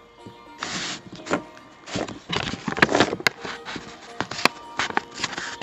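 Paper grocery bag rustling and crinkling as it is folded around a small glass jar, in irregular handling noises with scattered sharp crackles. Quiet background music plays underneath.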